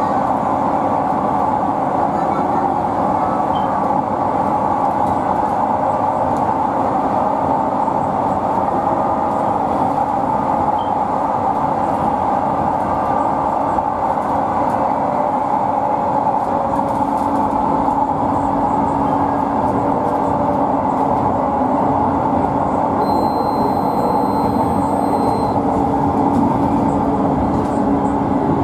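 LRT Jabodebek electric light-rail train running along an elevated track, heard from inside the driver's cab: steady rolling noise of wheels on rails. A steady hum comes in about halfway through. Near the end a faint high tone sounds for about two seconds.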